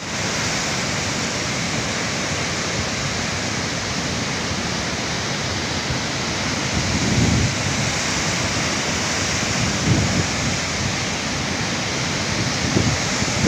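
Muddy flash-flood torrent rushing in a steady, loud, full roar of churning water, with a few brief low surges.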